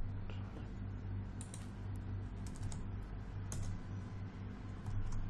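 Computer keyboard typing: scattered, irregular key clicks over a steady low hum.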